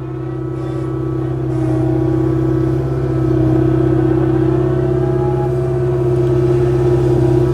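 Kubota KX057-4 mini excavator's diesel engine running steadily under working load as it digs. It grows louder over the first few seconds, then holds.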